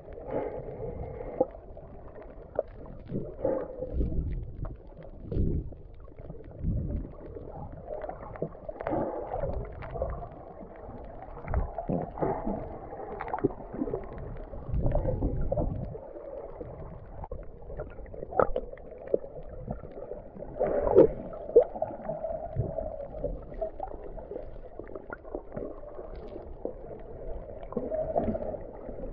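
Muffled underwater sound picked up by a submerged camera while snorkeling: water sloshing and gurgling, with irregular swells every second or so.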